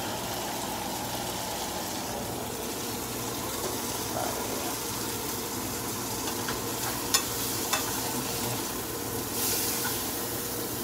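Tilapia and shrimp frying in a pan: a steady sizzle, with two sharp clicks a little past halfway and the sizzle flaring louder near the end.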